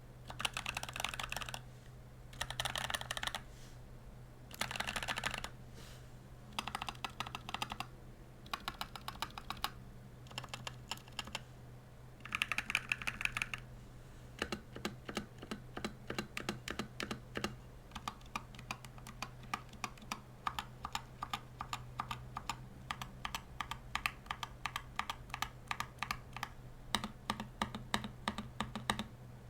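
Mechanical keyboard typing on lubed and filmed Gazzew Boba U4T 68 g tactile switches, a thocky sound. In the first half it comes in short runs of rapid keystrokes about every two seconds. After that it becomes a steady stream of separate keystrokes, several a second.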